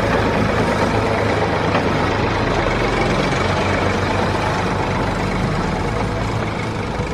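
Heavy engine idling steadily: a continuous low rumble with a hiss over it and no change in speed.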